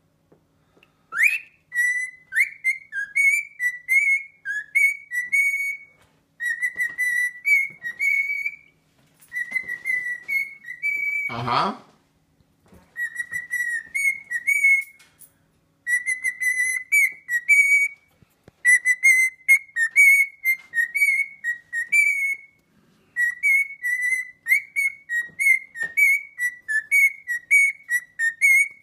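Cockatiel whistling its song: short whistled notes strung into phrases a few seconds long, with brief pauses between them. One brief loud noise comes about halfway through.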